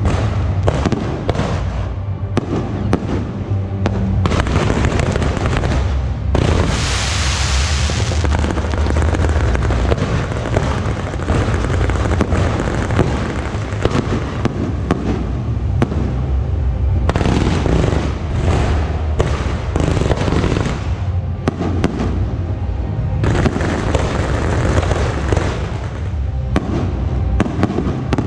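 Continuous barrage of fireworks: rockets and aerial shells going off in rapid, overlapping bangs and crackles, with a sharp hiss lasting about a second and a half, about seven seconds in.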